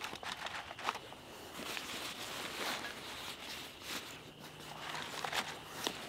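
Close rustling and crackling from handling and shifting in dry brush, irregular and loudest in the foreground, over a steady high-pitched trilling chorus of spring frogs in the background.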